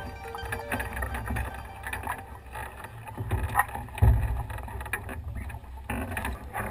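Wind rumbling on the microphone aboard a wooden 18-foot sailing skiff, with scattered knocks and rattles from the rigging and loose sails.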